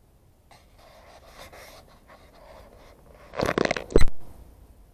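Breathing close to the microphone, then a brief loud crackling rustle that ends in a thump about four seconds in.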